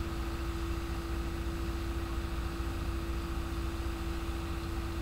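Engines idling, heard from inside a car: a steady low rumble with a constant hum over it that does not change.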